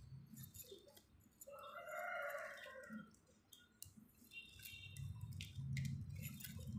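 Stiff plastic wire strips clicking and rustling as they are bent and tucked into a woven plastic bag, with low bumps of handling noise near the end. About a second and a half in, a call of about a second sounds in the background, louder than the handling.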